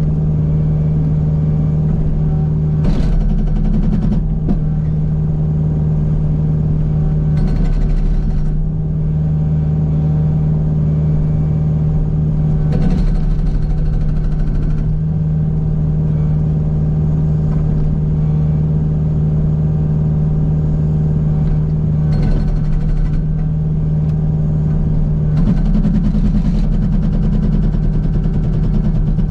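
Kubota U55 mini excavator's diesel engine running steadily under load, with several spells of rapid rattling blows from the Agrotk 680 hydraulic breaker hammer chipping at rock. The longest run of hammering comes near the end.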